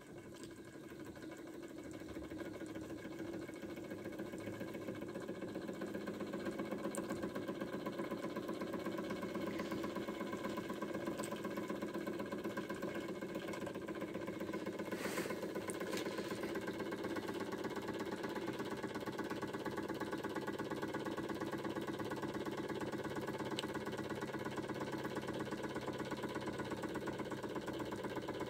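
Antique Georges Carette hot air engine running, its piston, valve gear and flywheel making a rapid, even mechanical beat. It grows louder over the first several seconds and then holds steady, with a brief sharp noise about halfway through.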